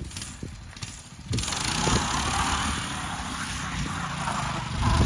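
Predator 212 single-cylinder engine on a mini bike running as it is ridden, its governor removed and a 22mm carburetor fitted. It gets louder and fuller about a second in.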